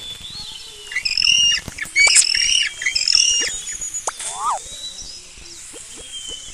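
Series of short, sharp bird-like squawking calls, loudest and most frequent from about one to three and a half seconds in, then fading to a few fainter calls.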